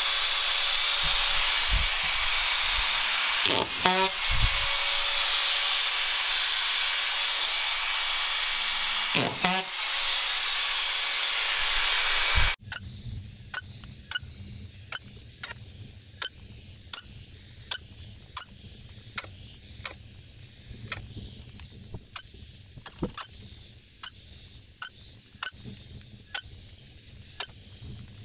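Drywall screw gun running steadily at close range, a loud hiss with a faint steady whine, its sound faltering briefly twice as screws are driven into ceiling drywall. About halfway it cuts off abruptly, giving way to a quieter low rumble with light, evenly spaced clicks.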